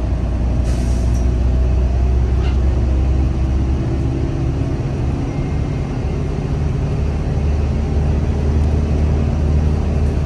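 Inside a moving bus: a steady low engine and road rumble, with a short hiss about a second in.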